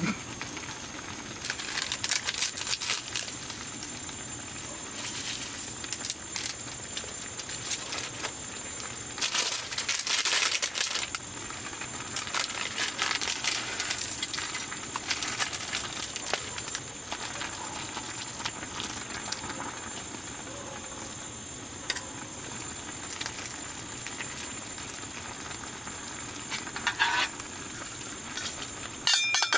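Food cooking over a camp stove: a steady hiss with louder spells of sizzling and a few light clinks of utensils.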